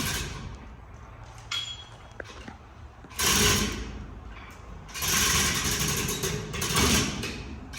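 Hand socket ratchet clicking in two spells, a short one and a longer one, as a bolt is turned, with small metal clicks in between.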